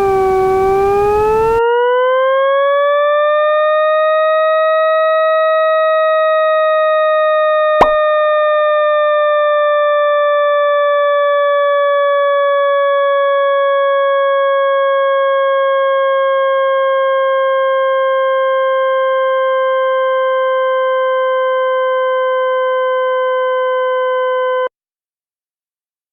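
A loud electronic tone made in the Desmos graphing calculator. Its pitch dips, then slides up over the first few seconds and slowly sinks from there, with a hiss beneath it for the first second or so. There is a sharp click about eight seconds in, and the tone cuts off suddenly near the end.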